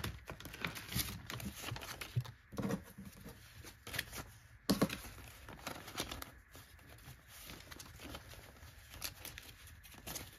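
Paper dollar bills rustling and crinkling as they are handled, fanned and counted by hand, in irregular flicks with one sharper rustle about halfway through. Near the start, the crinkle of a plastic zippered binder pouch as bills are pulled out of it.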